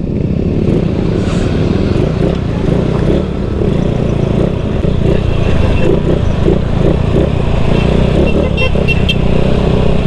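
Small automatic scooter running along a rough off-road trail, a loud, steady engine-and-road rumble.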